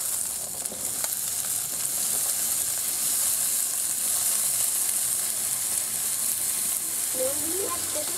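Chopped carrots, peas, spring onion shoots and potatoes sizzling in hot oil in a wok just after being tipped in: a loud, steady frying hiss.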